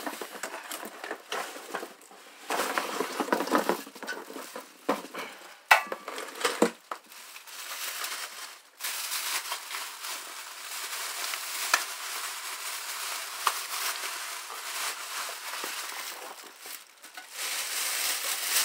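Packaging crinkling and rustling with scattered knocks and clicks as an air compressor is worked out of its box.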